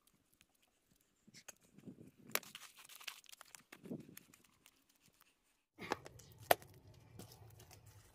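Faint scraping, rustling and scattered small clicks and knocks from hands working stones and wet clay mortar. A low steady hum comes in about six seconds in, with one sharp click shortly after.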